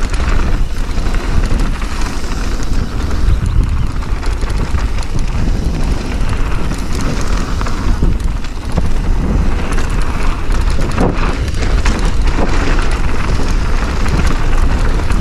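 Mountain bike ridden fast down a dirt bike-park trail: wind rumbling on the microphone over tyre noise on the dirt, with frequent clattering knocks from the bike over bumps.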